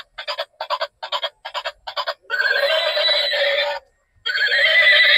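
Battery-operated light-up toy car playing its built-in electronic sound effects from a small speaker: a run of short pitched beeps, about three a second, then two longer wavering electronic tones with a short break between them.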